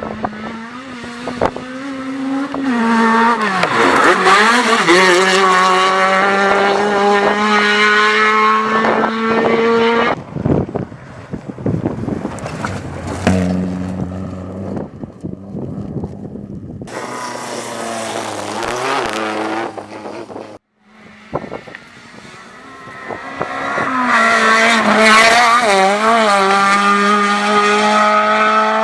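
Rally car engines revving hard and passing at speed, their pitch rising and falling with throttle and gear changes. Several separate passes are joined by abrupt cuts, about ten, seventeen and twenty-one seconds in.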